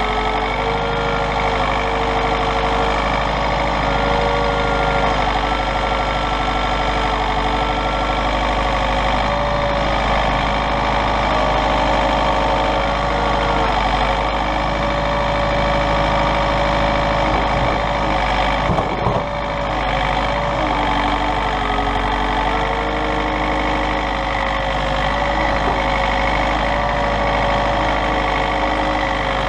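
Diesel tractor engine running steadily, its speed stepping up and down slightly a few times as it works, with a brief clunk about two-thirds of the way through.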